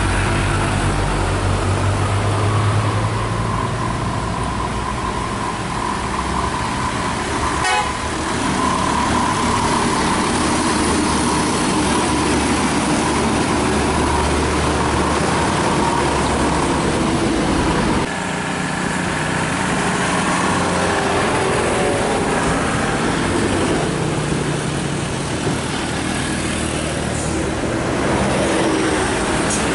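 Heavy road traffic: diesel trucks, buses and motorbikes running past, with vehicle horns tooting.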